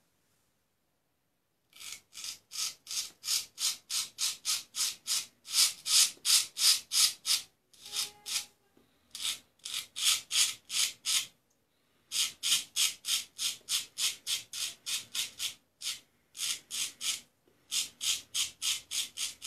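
Luigi Rizzo straight razor shaving lathered short stubble on the neck and jaw: quick, short scraping strokes, about three a second, in runs broken by brief pauses. The strokes start about two seconds in.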